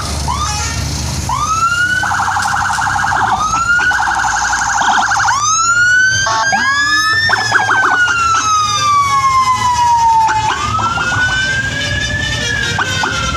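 Indonesian bus 'telolet' horn of the Basuri type playing a siren-like tune: short rising whoops, two fast warbling trills, then long slow sweeps that rise and fall in pitch.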